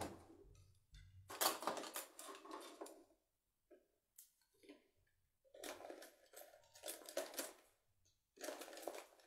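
Rustling and handling noises as painting supplies are moved about, in irregular bursts of a second or two with short pauses between them.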